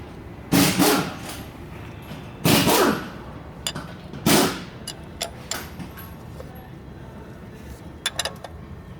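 Work noise from hand tools and parts being handled: three short, loud rattling bursts in the first half, then a few light clicks and taps.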